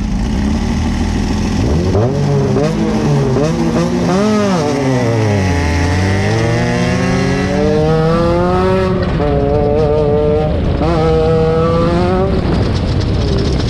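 Off-road race vehicle's engine revving, its pitch climbing and dropping several times before holding high near the end. A steady lower engine drone runs underneath.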